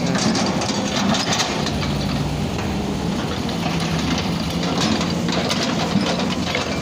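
An engine running steadily at a constant pitch, with light clicks and rattles over it.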